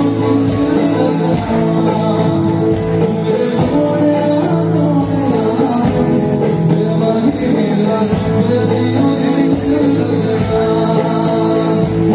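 A live band playing a song: singing over electric guitar and keyboards, heard through the hall from the audience.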